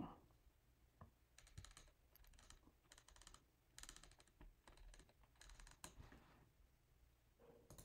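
Very faint clicking of a computer mouse scroll wheel, in several short runs of rapid ticks about a second apart, as a page is scrolled.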